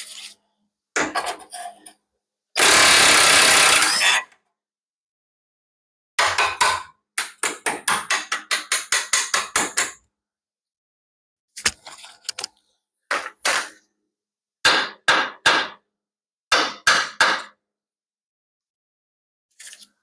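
Mechanic's tools at work on the truck's front suspension. About two and a half seconds in comes one loud steady burst, about a second and a half long. After that, a fast run of sharp metallic strikes, about four or five a second, is followed by groups of two or three strikes.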